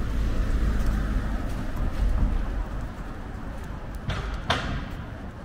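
City street ambience: a steady low rumble of traffic and wind, with two short hissing swishes about four seconds in.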